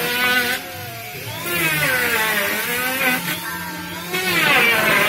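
Electric hand planer shaving a suren wood board, its motor whine dipping and rising in pitch as the blades bite and free up. Louder cutting passes come about a second and a half in and again about four seconds in, with the planer running lighter in between.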